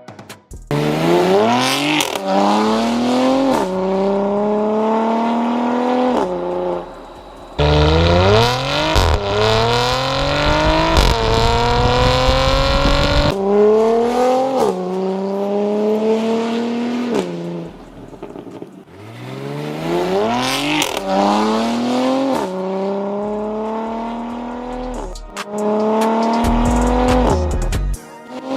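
Porsche 971 Panamera 4S twin-turbo V6 with a valvetronic catback and catless downpipes, accelerating hard through several upshifts. The exhaust note climbs in pitch, drops at each shift and climbs again, with steadier cruising stretches between the pulls.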